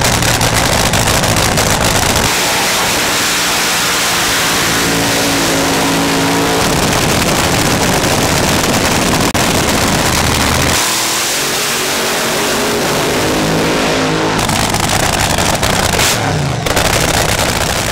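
Supercharged V8 engines of front-engine dragsters running loud and rough through open exhaust headers, with a short rev that rises in pitch near the end.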